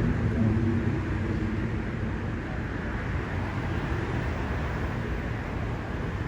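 Road traffic noise: a passing vehicle's rumble fading over the first second or two, then a steady traffic hum.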